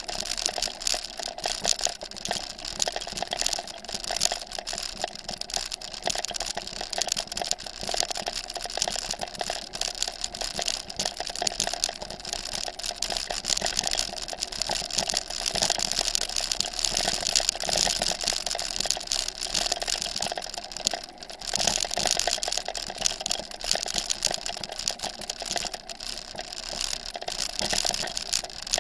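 Bicycle rolling over a bumpy grass track, heard through a handlebar-mounted camera: a steady, dense, irregular rattle and clatter of bike and camera mount shaking over the ground.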